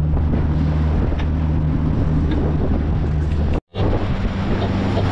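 Outboard motor on a small fishing tender running steadily under way, with wind and water rushing past. The sound drops out for a split second about three and a half seconds in.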